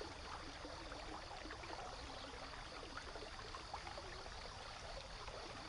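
Faint, steady rainforest ambience: a soft hiss with scattered small ticks.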